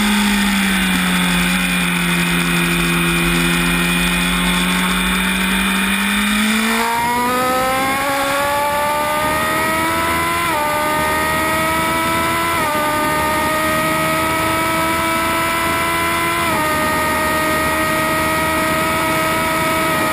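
Onboard sound of a Honda 1000 cc inline-four race bike engine with wind rushing past: it holds a low, steady note through a long corner, then about seven seconds in opens up and climbs hard under full acceleration, with three quick upshifts, each a sudden drop in pitch before the note rises again.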